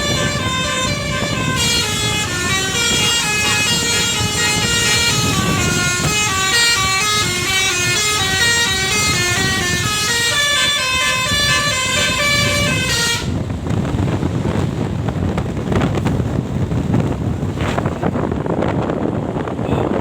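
Bus 'telolet basuri' musical air horn playing a quick tune of stepped notes, stopping about two-thirds of the way through. After that only a steady rumbling noise remains.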